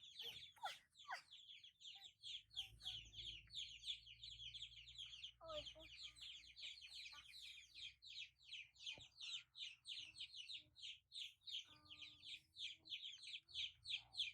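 Faint, fast high-pitched animal chirping, about six short chirps a second, going on steadily, with a soft knock or two.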